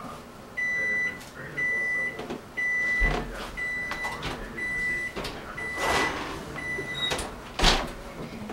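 Electronic kitchen appliance timer beeping: seven steady high beeps about once a second, then stopping. Clunks of the oven door and a pizza box being handled come in between, with a loud knock near the end.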